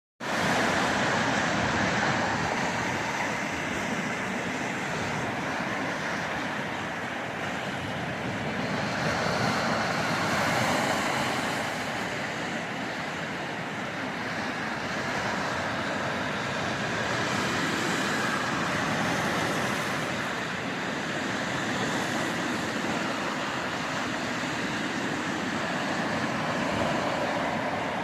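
Lake Erie waves breaking and washing up the beach: a continuous rush of surf that swells and eases every several seconds.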